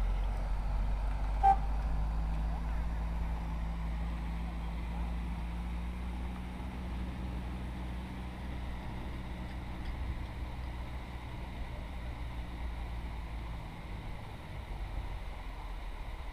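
Steady low drone of a distant engine over a low rumble, with a single short, high beep about a second and a half in.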